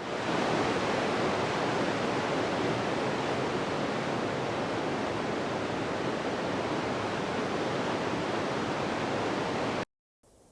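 Steady rushing wind, an even wash of noise with no gusts, that cuts off abruptly near the end. After a moment's silence, a much fainter, quieter wind ambience begins.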